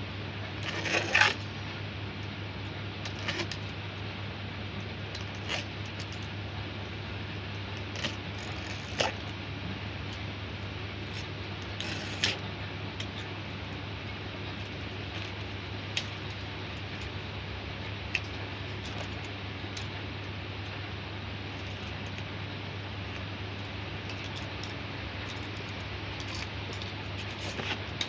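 Sharp metallic clinks and taps of metal parts or tools, a quick cluster about a second in, then single taps every few seconds, over a steady low hum.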